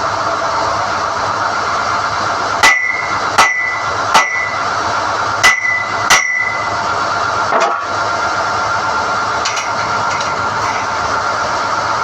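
SDH-1600 core drilling rig running steadily while NQ drill rods are pulled, with five sharp metal-on-metal clanks that each ring briefly, then a softer knock.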